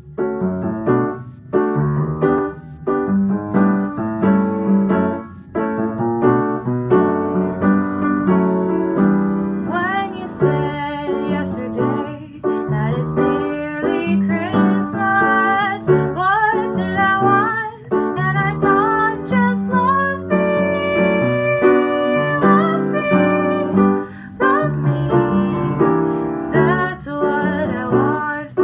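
Upright piano playing a tune, with chords and a melody. From about ten seconds in, a higher melody line with sliding pitches joins over the piano.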